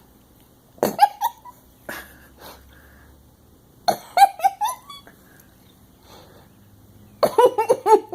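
A person laughing in short bursts, three times, with quiet room between.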